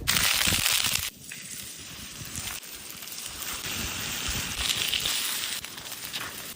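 Sizzling and crackling of trout cooking on a hot natural stone: a loud burst of sizzle for about the first second, then a steadier, softer sizzle.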